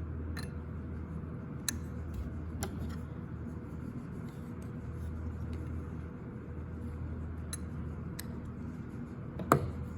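Light handling of a fertilizer pumper head's small metal parts as its dial is set to full open: a few scattered sharp clicks, the loudest near the end, over a steady low hum.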